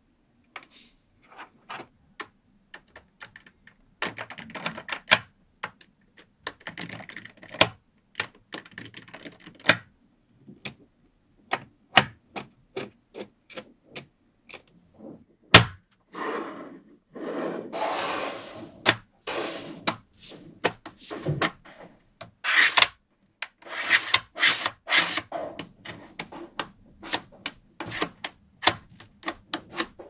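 Small neodymium magnetic balls clicking sharply as they snap onto one another, irregularly and many times, with stretches of the balls rubbing and rolling against each other and the table as rows are pushed into place.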